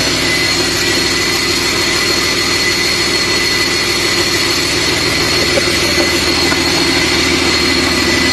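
Rebuilt Caterpillar C9.3 inline-six diesel engine running steadily on a test stand, a fast even rumble with a steady high whine over it, on its test run after the rebuild.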